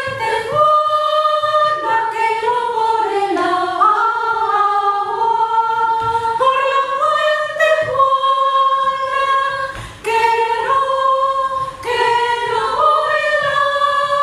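Women's voices singing a cappella: a slow melody of long held notes, with a brief break about ten seconds in.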